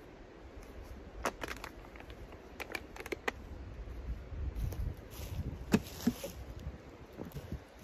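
Footsteps on dry leaf litter and wood chips, with scattered sharp clicks and crackles: one about a second in, a quick cluster a little later, and the loudest near the end.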